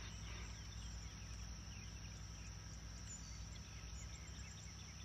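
Faint outdoor ambience: a steady high-pitched insect drone with scattered faint bird chirps.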